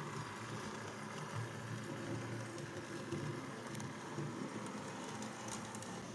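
Model Class 57 diesel locomotive running around a model railway track: a steady low rumble from its motor and wheels on the rails, with a few faint ticks.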